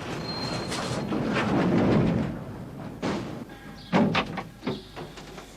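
A vehicle running, which fades out a little over two seconds in, then several sharp knocks and thuds, such as doors.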